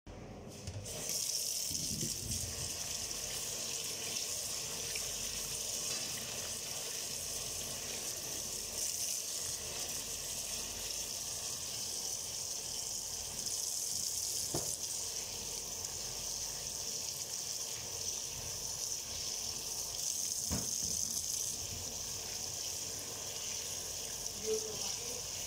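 Kitchen tap running steadily into a stainless steel sink as sweet potatoes are rubbed clean under the stream, starting about a second in. Two short knocks come through in the middle.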